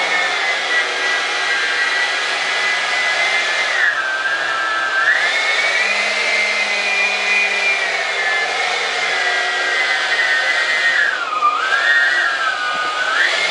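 Electric ducted fan (Dr. Mad 68 mm, 10-blade) running with a steady high whine and rushing air, its pitch dipping twice as it slows, about four seconds in and about eleven seconds in, then rising again.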